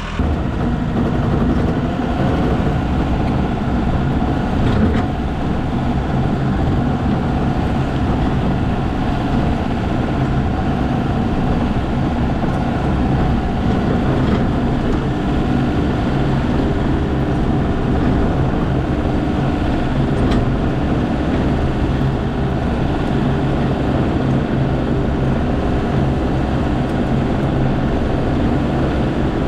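Skid steer engine running steadily and loudly as the machine moves fill dirt.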